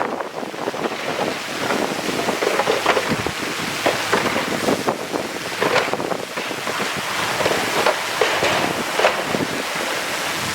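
Earth-moving work: loose soil and stones tumbling and scraping in an irregular crackling rush, with wind buffeting the microphone.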